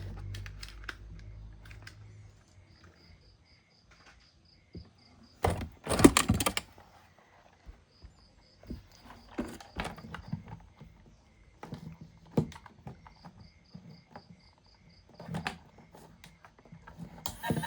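Plastic toy vehicles and their packaging being handled: scattered clicks, taps and rustles, with a louder burst of rattling about six seconds in. Faint runs of quick, evenly spaced high pips repeat several times in the background.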